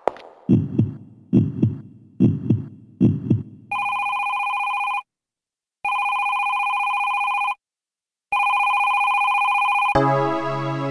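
Heartbeat sound effect: four low double thumps about a second apart, followed by an electronic telephone ringing three times with short silent gaps. The song's music comes in near the end.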